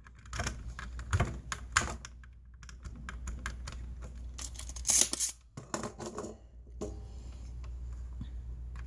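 Irregular clicks and taps of small hand tools working on a circuit board, the loudest about five seconds in, stopping about seven seconds in, with a steady low hum underneath.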